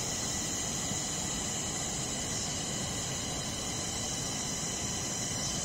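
Steady rushing of a river, with a constant high hiss above it.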